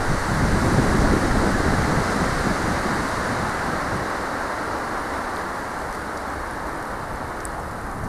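Stormy wind rushing through the conifer crowns, swelling in a gust about a second in and then slowly easing.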